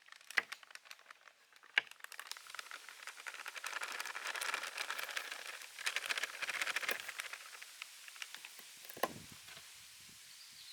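Crispy flour being handled and mixed: a dense, crackly rustle that lasts several seconds. A few light knocks come before it and a single thump near the end.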